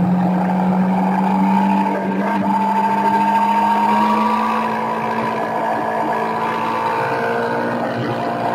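Sport motorcycle engine heard on board, running steadily under load at speed, its pitch climbing slowly as the bike gathers revs.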